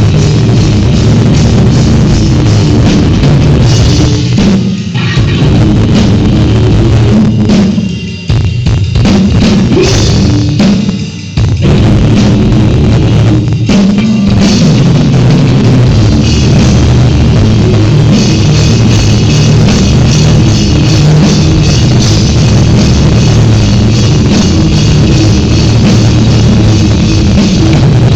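A rock band playing loudly at a sound check, with the drum kit and bass drum to the fore. The playing drops away briefly about 8 seconds in and again about 11 seconds in.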